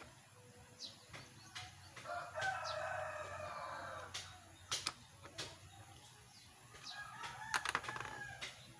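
A rooster crows once, a wavering call of about two seconds starting about two seconds in, with a shorter call near the end. Scattered sharp metallic clicks come from a hex key turning the bolts of an electric planer's blade holder.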